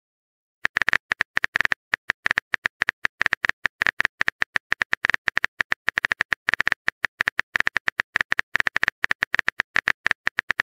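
Rapid, irregular keyboard-typing clicks from a chat app's typing sound effect, starting just under a second in and running on steadily.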